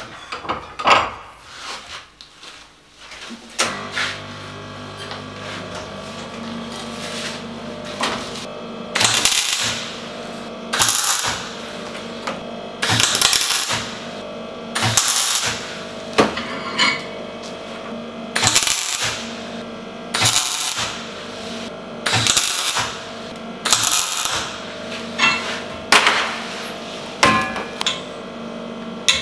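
MAG welder laying a series of short stitch welds on steel, each burst of crackling arc about a second long and coming every couple of seconds, over a steady hum. A few metal clinks come first, as the parts are set in the vise.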